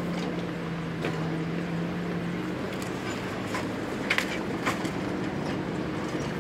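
Kobelco hydraulic excavator's engine running steadily as it tears into a wood-framed building, its note dropping slightly a couple of seconds in. A few sharp cracks of breaking timber and falling debris come about four seconds in.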